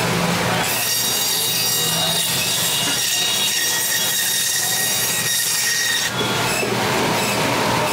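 Band saw cutting lengthwise through a section of rohu fish: the blade gives a high, steady metallic squeal from about a second in until the piece is split near six seconds, when the squeal stops and the saw runs on.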